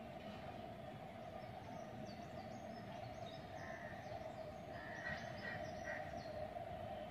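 Outdoor ambience: a steady low-level hum, with small birds chirping in quick short notes through the middle.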